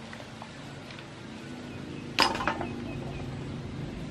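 Cooked clam shells clinking and clattering as they are handled and pried apart, with one quick cluster of clicks about two seconds in and a few light ticks around it.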